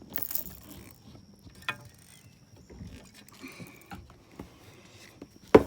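Fishing line being pulled off the reel, the reel's drag clicking, with scattered handling clicks and a sharp knock near the end.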